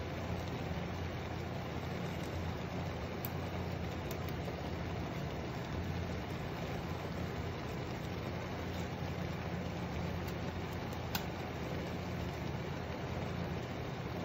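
Steady low hum with an even hiss over it from a frying pan of water and noodles heating on an electric cooktop, with a few light clicks of wooden chopsticks against the pan.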